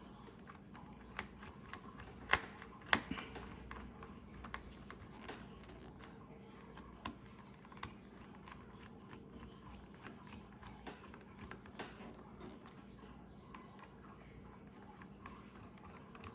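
Small plastic parts of an Elcaset cassette being handled and fitted by hand: scattered light clicks and taps, with two sharper clicks about two and three seconds in, over a faint steady hum.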